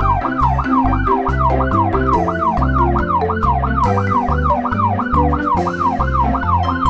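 Emergency-vehicle siren wailing fast, its pitch sweeping up and down about three times a second, over background music with a bass line and beat.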